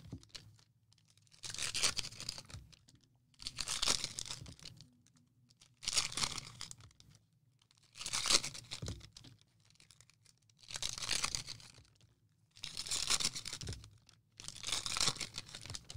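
Foil trading-card packs being torn open one after another: seven ripping rustles, each about a second long, roughly every two seconds.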